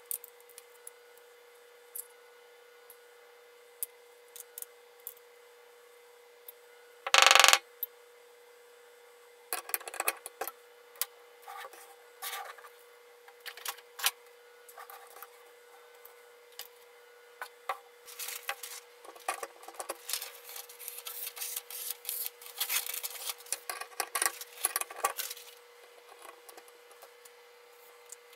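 Clicks, taps and light scrapes of metal parts being handled as a kitchen knife is fixed in the clamp of a guided-rod knife sharpener, with one loud knock about seven seconds in. The handling noises come thicker in the second half, over a faint steady hum.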